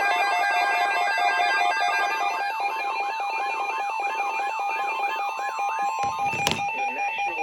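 Weather radio emergency alert tones: steady alarm tones held throughout, with a warbling beep repeating about three times a second layered over them for a few seconds. A sharp click sounds about six and a half seconds in.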